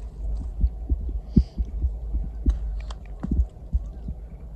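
Low rumble on the microphone, with irregular dull thumps several times a second and a few faint crackles.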